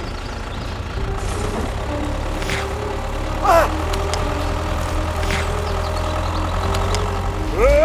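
Tractor engine running steadily with a low rumble. A short rising squeal cuts in about three and a half seconds in, and another begins near the end.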